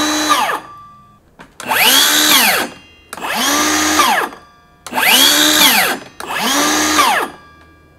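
Two Milwaukee M18 cordless circular saws, a 7 1/4-inch non-Fuel and a 6 1/2-inch Fuel, run in turn with no load: each blade spins up with a rising whine and winds down again once the trigger is let go. One run ends about half a second in, then four more follow, each about a second long.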